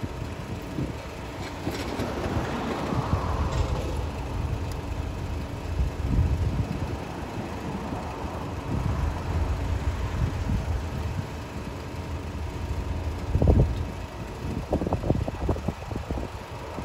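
Road traffic passing close by, the rush of a car's tyres and engine going by, over a low rumble of wind buffeting the microphone with occasional bumps.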